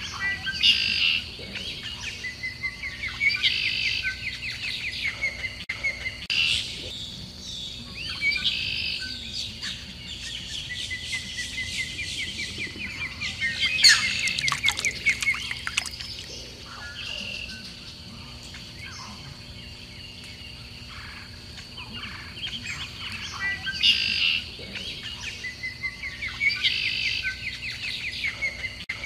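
Songbirds calling in the wild. A quick, rapidly pulsed trill repeats every few seconds among scattered chirps, with a louder burst of sharp chirps about halfway through and a steady faint high tone underneath.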